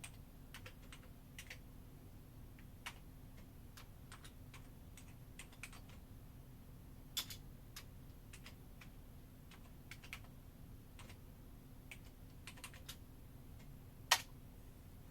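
Scattered light computer keyboard clicks at irregular intervals over a faint steady hum, with one sharper click about two-thirds through and the loudest click near the end.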